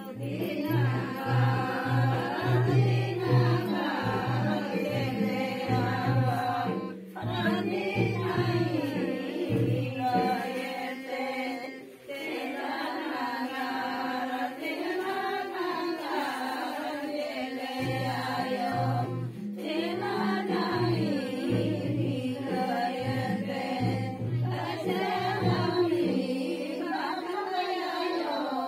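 Women's voices singing a song together in repeating phrases, with a low drum-like beat under it for the first stretch and again later on.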